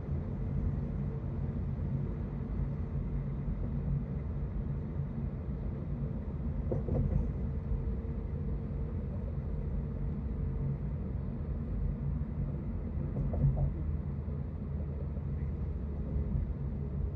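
Road and engine noise inside a car cruising on a freeway: a steady low rumble, with a faint steady hum and two brief knocks partway through.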